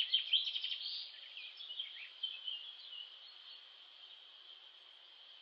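Small birds chirping in quick, overlapping calls that thin out into a steadier high trill, fading gradually.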